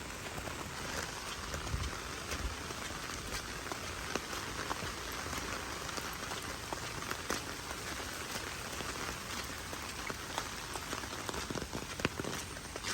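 Steady heavy rain, with many separate drops striking close by.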